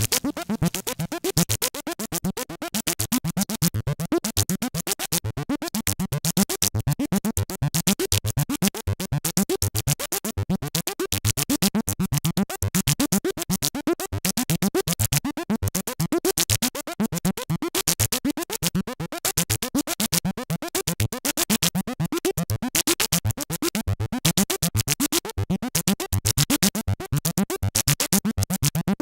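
Dave Smith Instruments Prophet '08 analog synthesizer playing a fast, even run of short staccato notes. Each note has a quick upward pitch sweep and a bright click at its start, giving a scratchy, pulsing texture.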